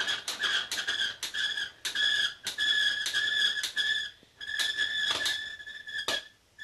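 Hand crank on the launch stand of a Gakken Leonardo da Vinci helicopter model being turned to wind the rubber inside the post: a high squeak pulsing with each stretch of turning, over steady clicking about three times a second.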